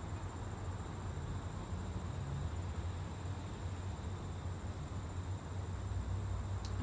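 Steady background noise with no distinct event: a low rumble and an even hiss, with a faint steady high whine above them.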